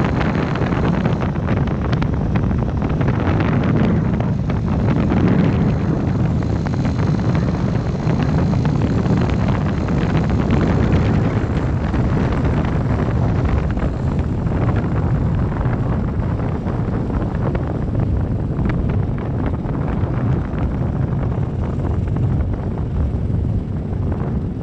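Motorcycle riding along a dirt track: steady, heavy wind rumble on the microphone with the bike's engine running underneath.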